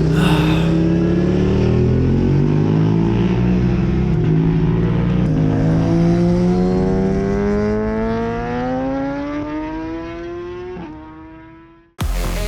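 Racing motorcycle engines running, one engine's pitch climbing steadily as it accelerates, with a brief dip near the end before the sound fades out.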